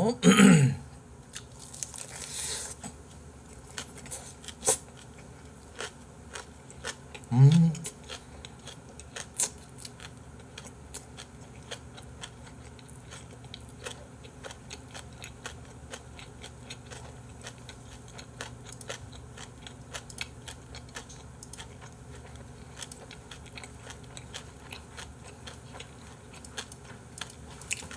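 A person chewing a big mouthful of lettuce-wrapped boiled pork (bossam) with kimchi, with many small crisp crunches and wet mouth clicks. There is a brief voiced sound right at the start and another about seven seconds in.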